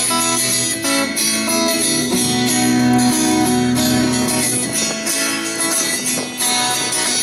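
Two acoustic guitars, a Taylor and a Hudson, playing a folk-country instrumental intro through a PA, strummed chords with picked notes over them.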